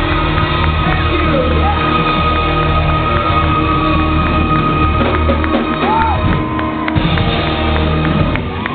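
Rock band playing live on electric guitars, bass guitar and keyboard, loud and dense, with a single high note held through the first few seconds. The loudness dips near the end.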